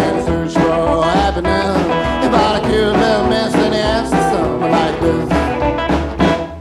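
Recorded band music with a steady beat, dropping away sharply right at the end.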